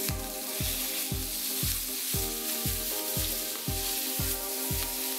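Chicken legs sizzling in hot oil in a frying pan as their skin browns. Background music with a steady beat and held notes plays over the sizzle.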